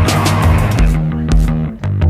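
Background rock music with bass guitar, electric guitar and a steady drum beat.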